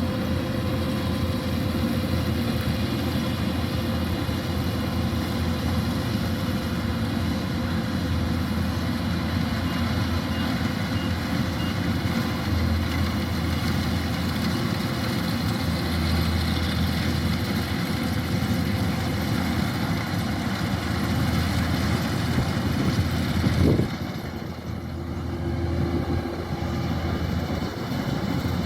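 Kubota DC-105X rice combine harvester's diesel engine running steadily under work. About five seconds before the end there is a short sharp peak, then the sound drops quieter and duller.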